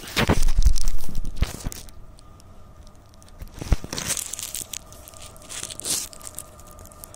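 Crackling, rumbling noise on the microphone of a hand-held phone, loudest in the first two seconds and flaring again twice later, over a faint steady hum.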